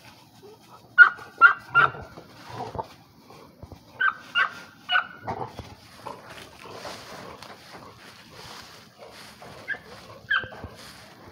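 A pit bull-type dog tugging on a tire springpole gives short, high yips in two quick sets of three, and two more near the end, with dry leaves rustling under its feet in between.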